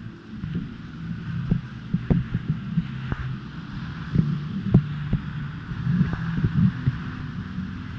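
Irregular dull thumps and knocks, about a dozen and unevenly spaced, over a steady low hum.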